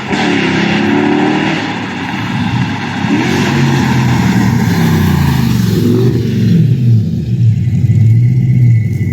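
Holden VF Commodore SS's 6.2-litre LS3 V8 accelerating hard through the gears. Its pitch climbs and drops back at each shift, about three times, then holds steady near the end.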